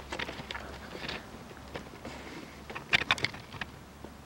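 Rustling and scattered clicks of a handheld camera being moved and handled, with a quick cluster of sharp clicks about three seconds in, over a low steady hum.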